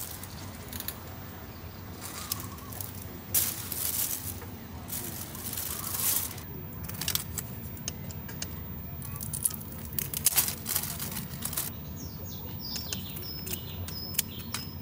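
Kitchen scissors snipping raw shrimp shells, heard as short crisp clicks, mixed with a clear plastic bag crinkling and rustling in bursts.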